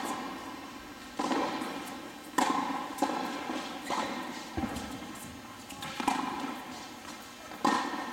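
A tennis ball being struck by rackets and bouncing on an indoor hard court during a rally. It makes about seven sharp pops a second or two apart, each ringing on in the hall.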